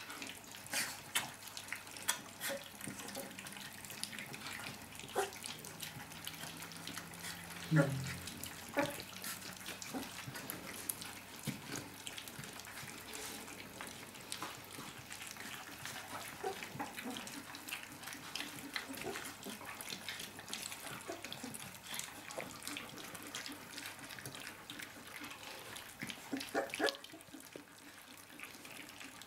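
Three-week-old puppies lapping and slurping soft weaning food from a shared steel feeding dish: a steady wet smacking full of small clicks, with one louder knock about eight seconds in.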